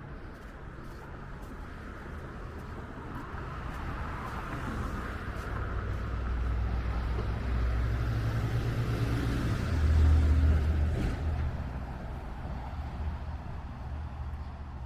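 A motor vehicle passing close by: engine rumble and tyre noise build up over several seconds, are loudest about ten seconds in, then fade away.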